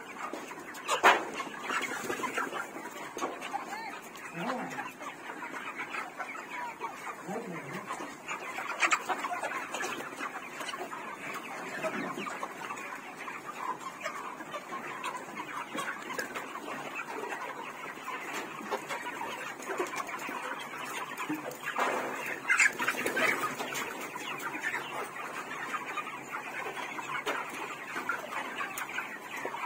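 A flock of chickens clucking continuously, many birds calling over one another, with a few louder squawks standing out now and then.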